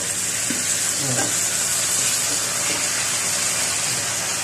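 Pork belly and chicken pieces sizzling in hot oil in a pot as they are sautéed with garlic and onion: a steady hiss.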